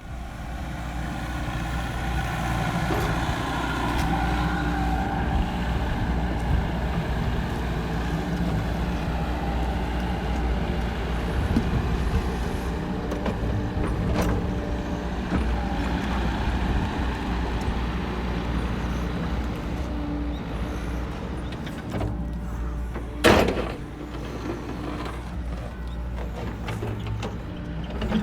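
A heavy machine's engine running steadily with a low rumble and mechanical clatter, and one sharp loud knock a few seconds before the end.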